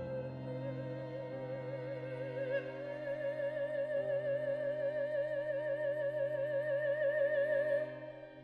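Chamber music for soprano and string quartet: a high note held with wide vibrato, stepping up slightly about three seconds in, over a sustained low cello note and softer inner string parts. The high note stops near the end.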